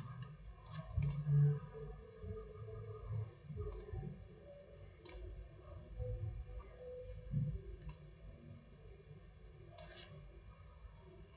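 Computer mouse clicking: about six single sharp clicks, spaced one to three seconds apart, over faint room noise.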